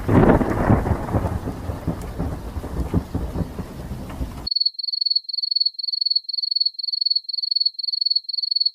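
A thunderclap with rain, a loud crack at the start fading into rumbling, cut off about halfway through; then a rapid series of high-pitched electronic beeps, about three a second.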